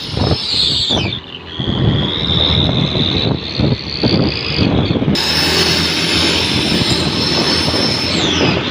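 Daihatsu Gran Max pickup's exhaust fitted with a homemade whistle tip, made from bicycle handlebar clamps, a bolt and old radiator hose, giving a jet-like whistle over the engine's rumble as the engine is revved. The whistle falls in pitch about a second in, then climbs slowly, turns louder and hissier about five seconds in, and falls again near the end.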